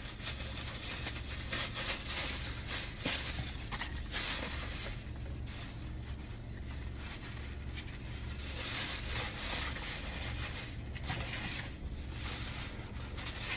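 Rustling, rubbing and scraping from a takeout food container and its bag being handled, over a steady low hum.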